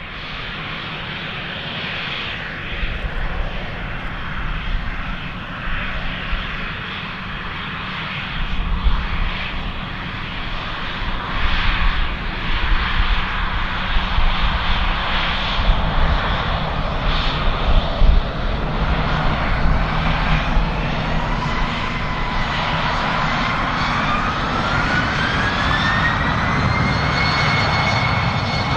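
Embraer E190's twin GE CF34-10E turbofans running with an uneven rumble, then spooling up for takeoff. A whine rises steadily from about twenty seconds in and levels off high near the end.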